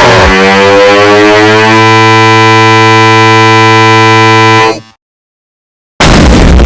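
Thirty Dollar Website meme sound samples repeated so fast that they merge into a loud, distorted buzzing drone. It cuts off abruptly about five seconds in, and after a second of silence a loud distorted blast begins near the end.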